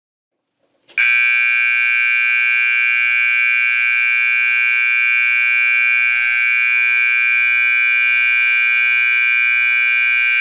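A Simplex 120 VAC mechanical fire alarm horn sounding one steady, continuous buzzing honk, with no pulsing. It starts about a second in.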